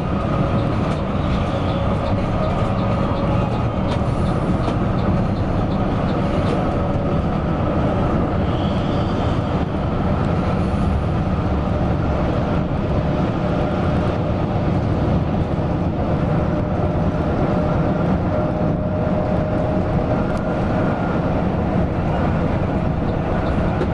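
Mercedes-Benz OC 500 RF 2542 coach under way, heard from inside: a steady drone of engine and road noise with faint rattles.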